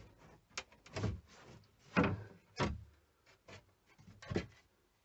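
Thin wooden tongue-and-groove panelling being prised and pulled off a cabinet frame: an irregular string of wooden knocks, cracks and creaks, the loudest about two seconds in.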